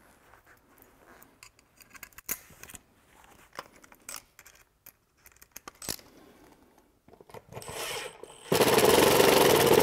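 Light handling clicks and taps, then a power drill starts up about seven and a half seconds in and runs loud and steady from about eight and a half seconds, drilling a mounting hole into a boat's transom.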